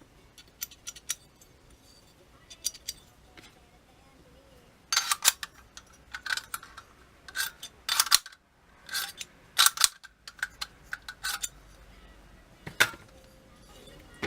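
Sharp metallic clicks and clacks of AR-15 rifle parts being handled and fitted together during assembly, coming irregularly and busiest in the middle.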